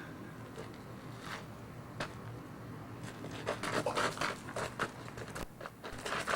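Scratching and scraping noises: a couple of sharp clicks, then a quick run of short scrapes and rustles in the second half.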